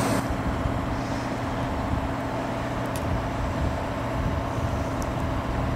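Steady low mechanical rumble with a constant hum of a few steady tones; no siren wail.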